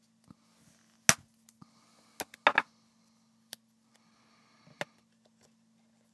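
Sharp clicks and snaps from hands pressing and handling the plastic case of a small handheld electronic device while taping a battery in place. The loudest snap comes about a second in, followed by a quick cluster of clicks a little later and a few fainter ones.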